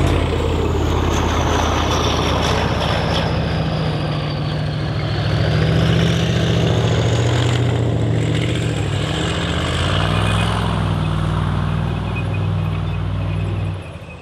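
Diesel engine of a tracked armoured vehicle running under load as it drives, with a high whine that falls and then rises again. The engine sound drops away near the end.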